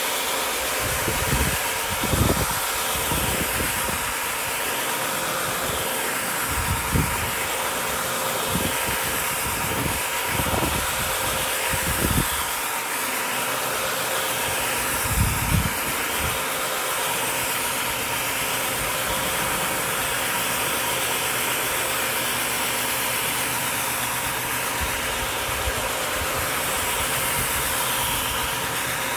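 Electric rug-scrubbing machine running steadily as it is pushed over a wet, shampoo-foamed rug: a constant motor hum with a hiss on top, and a few low bumps in the first half.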